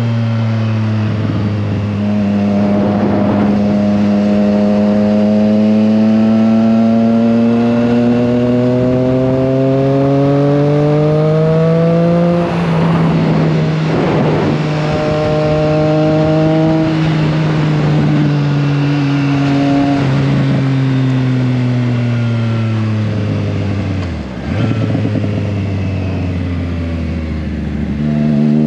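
Triumph Trident 660's inline three-cylinder engine under way, with a steady rush of wind. The revs climb slowly, break off briefly about twelve seconds in, hold, then fall away, and climb quickly again near the end.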